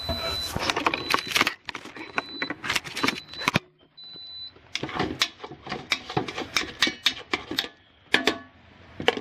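Plastic rice paddle scraping and knocking against the nonstick inner pot of a rice cooker as freshly cooked rice is fluffed, a rapid run of clicks and scrapes. A high electronic beep tone sounds on and off through the first half.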